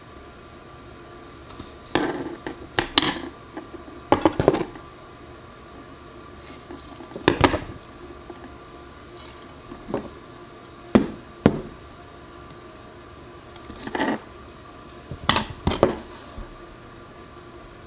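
Small hard parts clinking and knocking together as they are handled, in short clusters of clicks every few seconds, over a steady faint hum.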